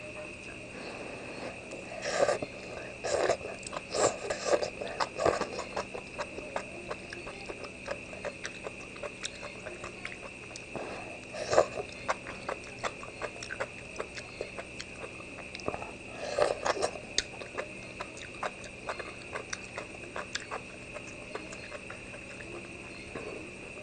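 A person eating spoonfuls of soupy duck blood and enoki mushrooms: slurping and chewing in bunches of wet clicks, with the loudest bursts a couple of seconds in, in the middle and about two-thirds through. A steady high tone hums behind it.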